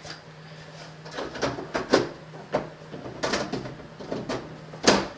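Plastic top cover of an Apple ImageWriter II dot-matrix printer being handled and fitted onto the printer's case: a series of irregular plastic clunks and rattles, the sharpest knock near the end.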